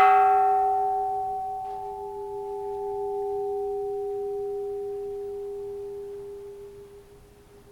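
Cracked antique bronze Japanese Buddhist temple bell ringing out just after being struck. The bright upper tones die away within a couple of seconds, leaving a steady low hum and a clearer tone above it that waver slightly and fade over about seven seconds. The long, eerie reverberation shows that the crack has not spoiled its resonance.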